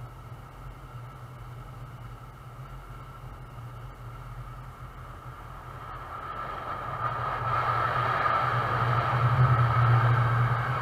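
Wagons of a container freight train rolling past on the rails, a steady rumble and rush of steel wheels that swells over the last few seconds as the final wagons pass closest, with a steady low hum beneath.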